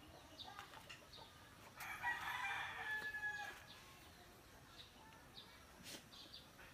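A rooster crowing once, a call of about a second and a half about two seconds in, with small birds chirping faintly around it.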